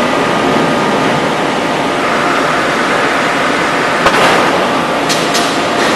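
Forging-press shop machinery running with a steady, loud industrial din. A sharp clank about four seconds in, then a couple of lighter metallic clicks.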